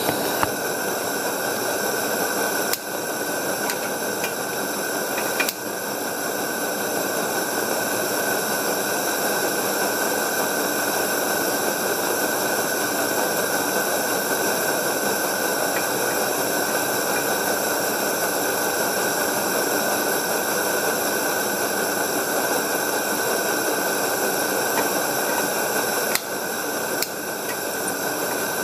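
Coleman pressurized gas lantern burning with a steady hiss, broken a few times by short clicks.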